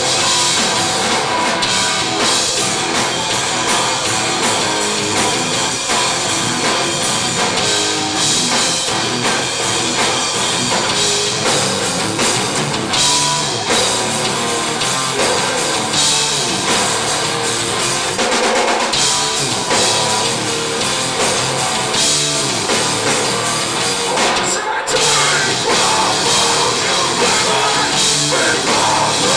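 A heavy metal band playing live at full volume: full drum kit with crashing cymbals under dense, distorted instruments, heard through a camcorder's microphone in the club.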